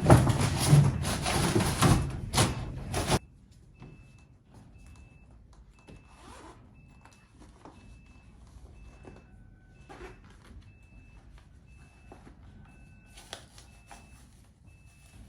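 A loud rushing noise cuts off abruptly about three seconds in. After it a vehicle's reversing alarm beeps faintly and evenly, about twice a second.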